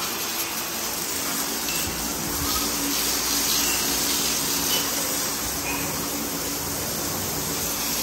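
Steady hiss of water spraying from a hose onto the ground.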